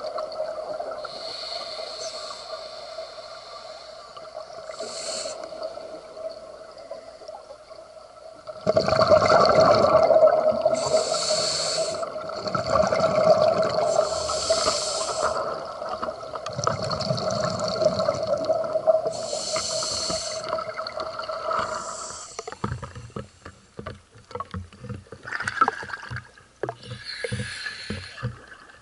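Underwater sound on a lake dive: a steady hum, with a diver's scuba breaths through the regulator and rushes of exhaled bubbles every few seconds. About three quarters of the way through the hum stops, and the camera breaks the surface into irregular water splashing and sloshing.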